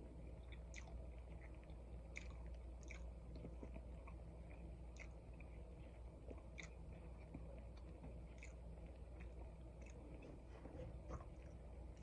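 Close-up eating sounds of a waffle sandwich filled with egg, turkey ham, cheese and cream cheese being chewed: faint, with small irregular mouth clicks, over a steady low hum.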